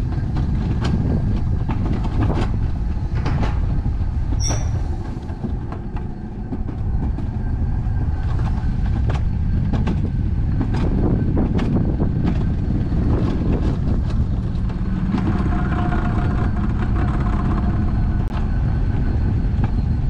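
Alpine coaster sled running along its steel rail track: a steady rumble of the wheels on the rails with repeated sharp clicks, and a whining tone for a few seconds near the end.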